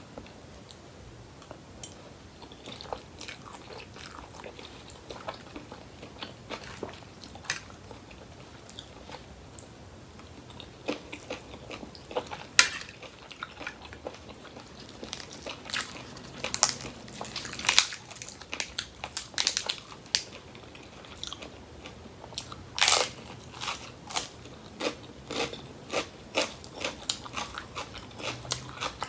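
A person biting and chewing crisp raw vegetables and a rice-noodle salad, with irregular crunchy bites and chewing. The crunches come more often and louder in the second half.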